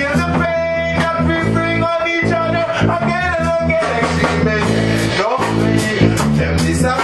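Reggae band playing, with a steady bass line, drums, guitar and keyboard, and a man singing over it.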